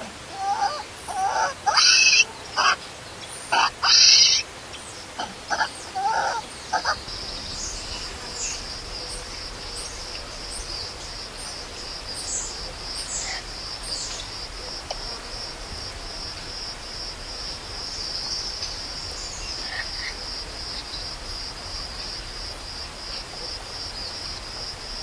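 A baby macaque crying: a run of short, loud, shrill calls over the first seven seconds or so. After that a steady, evenly pulsing high-pitched insect trill carries on.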